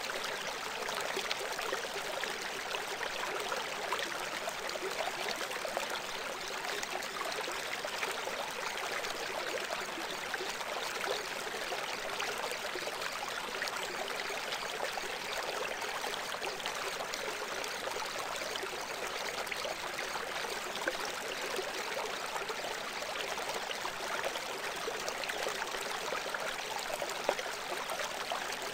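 Steady, unbroken sound of running water, like a flowing stream, with little low rumble.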